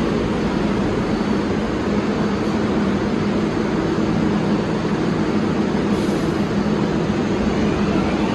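R188 subway train on the IRT Flushing (7) line running, a loud, steady low noise that neither rises nor falls.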